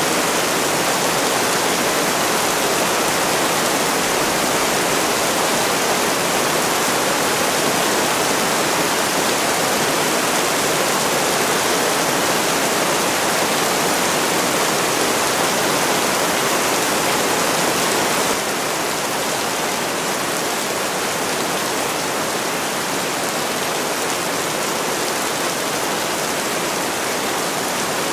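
Steady rain, a dense even hiss. About two-thirds of the way through it drops abruptly to a slightly quieter, duller hiss.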